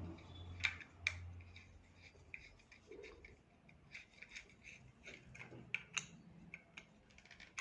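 Light metallic clicks and small scrapes of nuts being threaded on by hand over the bolts of a table fan's motor housing during reassembly, a dozen or so scattered ticks.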